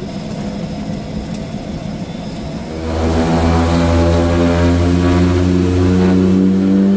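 Small twin-engine turboprop heard from inside the plane as it starts its takeoff: a lower engine and propeller hum, then about three seconds in the power comes up and a loud, steady propeller drone with several pitched tones takes over.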